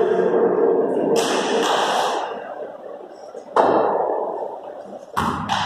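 Sharp knocks of cricket bat and ball in a large, bare hall, one past halfway and a second near the end, each followed by a short echo.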